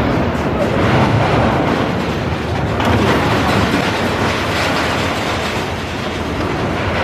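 E&F Miler steel roller coaster car running along its steel track, a steady rattling of wheels on the rails.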